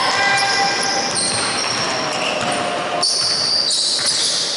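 Basketball game sounds in a gym: sneakers squeaking repeatedly on the court and a ball bouncing, over a din of voices.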